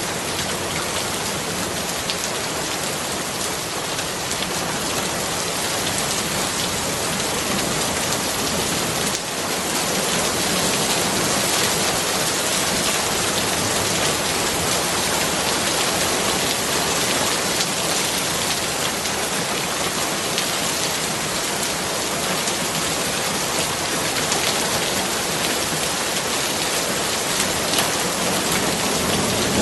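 Steady rain falling and pattering on surfaces, a dense even hiss with fine drop ticks, growing a little heavier about nine seconds in.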